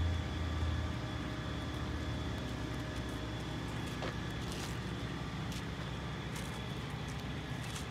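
Steady drone of a crane's engine running as it holds a rooftop HVAC unit on its slings; a deep rumble at the start eases off about a second in.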